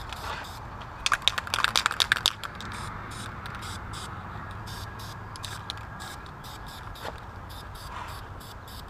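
Aerosol spray-paint can: a quick run of sharp rattling clicks about a second in, like the mixing ball when the can is shaken, then a steady hiss of paint spraying from the nozzle.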